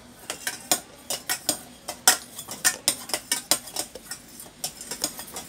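Quick, irregular metallic clicks and taps, several a second, as a hand tool knocks and scrapes against the metal end bracket of an electric fan motor during reassembly.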